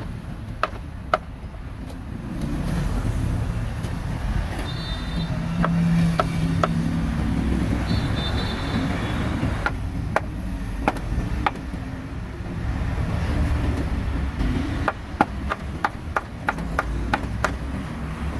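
Knife chopping grilled meat on a board in sharp, separate knocks, with a quick run of chops near the end, over the steady rumble of street traffic.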